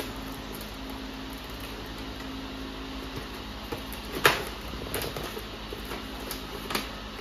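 Yellow plastic top rail being pressed onto a Hive IQ poly hive end panel: one sharp plastic click a little past halfway, with a few lighter taps and clicks, over a steady low hum.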